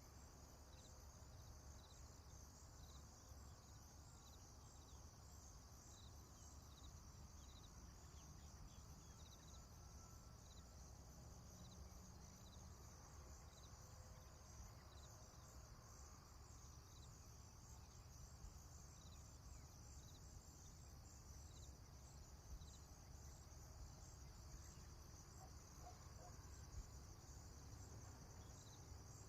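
Faint crickets chirping in a steady high trill, with a single chirp repeating about once a second, over a low background rumble.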